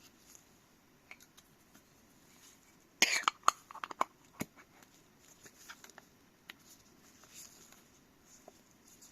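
Handling noise from a camera lens and its packaging: a brief cluster of sharp clicks and knocks about three seconds in, with faint scattered ticks around it.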